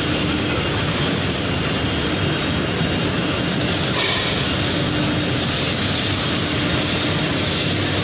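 Steady industrial machinery noise of a running roller heat-treatment furnace, an even mechanical din with a faint hum, growing brighter and hissier about halfway through.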